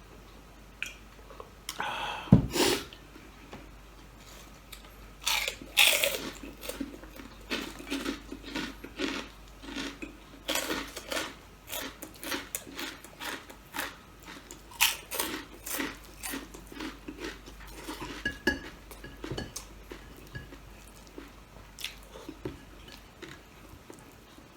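A person eating crunchy food close to the microphone: repeated crunching bites and chewing, with the loudest crunches about two and six seconds in and a quicker run of crackling chews after them that thins out near the end.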